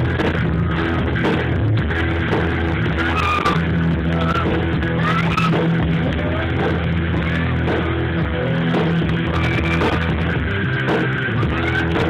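Background rock music with guitar and a steady beat.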